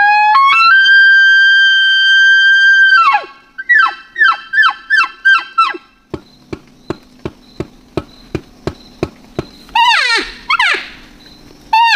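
Elk bugle: a note slides up into a high, steady whistle held for about three seconds, then breaks into about six quick falling yelps. A string of sharp clicks follows at about three a second, then another wavering, falling scream about ten seconds in.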